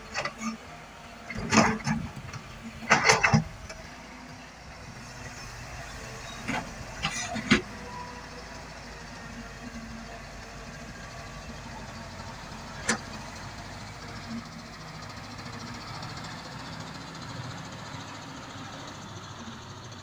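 Diesel engines of a Caterpillar 320 excavator and a dump truck running steadily, while a bucketload of soil and rocks is dropped into the truck's steel bed, landing in two loud bursts of thuds and clatter in the first few seconds. A few more knocks come around seven seconds in and a single sharp knock a little later, as the loaded truck pulls away.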